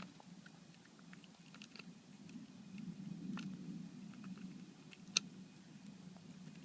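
A stray cat chewing food hungrily: scattered small crunching clicks over a low steady hum, with one sharper click about five seconds in.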